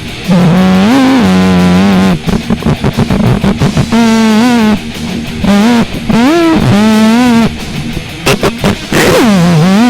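Loud, heavily distorted noise music: a single pitched line that holds notes and slides up and down in pitch, cutting in and out about once a second.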